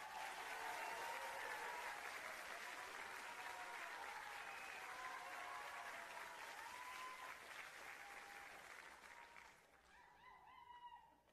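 Audience applauding, with a few voices calling out over it. The applause fades away about nine seconds in, leaving a few faint voices.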